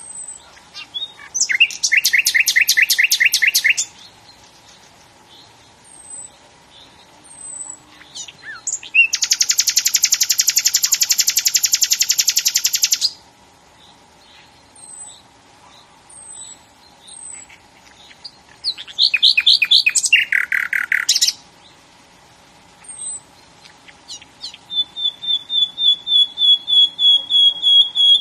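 A songbird singing in loud phrases of rapid trills, about four seconds long. Short high chirps fall in the gaps between phrases. The last phrase is a steady run of quick repeated notes on one pitch.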